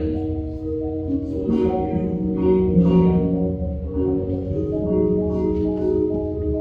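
Front ensemble mallet keyboards, marimbas and vibraphones, playing a passage of overlapping sustained chords, the notes changing every second or so.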